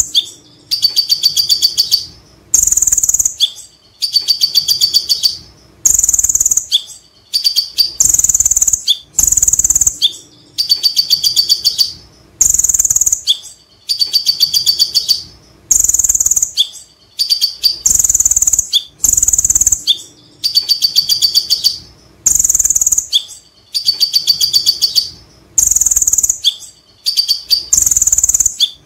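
Male van Hasselt's sunbird (kolibri ninja, 'konin') singing its ngekek song: the same phrase about every two seconds, a high note followed by a fast chattering run of rapid notes.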